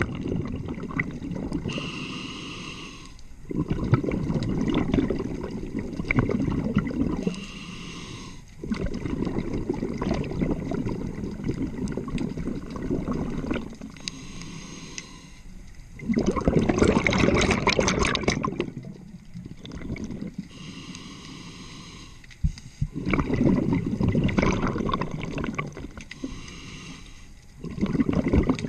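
A scuba diver breathing through a regulator underwater over several breaths. Each inhale is a quieter hiss with a faint whistle-like tone through the demand valve. Each exhale is a louder, longer burble of bubbles lasting a few seconds.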